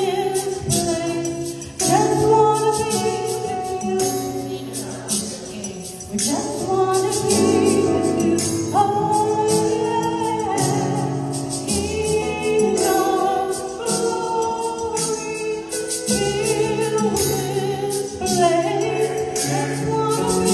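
A small group of women singing a gospel song together in harmony through microphones, with musical accompaniment and a steady beat of rhythmic percussion.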